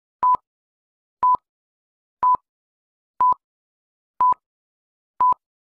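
Film-leader countdown beeps: six short electronic beeps at one steady pitch, one a second, each cut off sharply.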